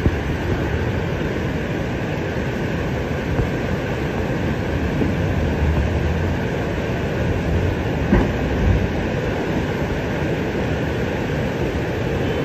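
Fast muddy floodwater rushing down a street as a steady, loud torrent, with a couple of brief knocks about eight seconds in.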